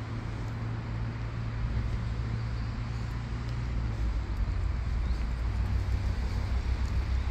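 Steady low rumble of motor traffic, with a low engine hum that shifts slightly about four seconds in.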